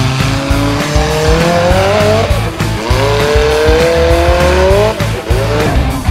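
Formula offroad buggy's engine revving hard twice. Each time its pitch climbs for about two seconds and then drops off, over background music with a heavy low beat.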